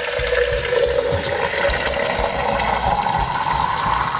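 Water running from a sink faucet into a cylindrical vessel, the pitch rising steadily as the vessel fills.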